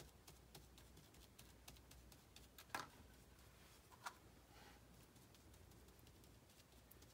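Near silence with faint scattered ticks and two slightly louder clicks a little past the middle, from a flat paintbrush dabbing watered-down glue (three parts glue, one part water) onto tissue paper and being dipped into a small cup of glue.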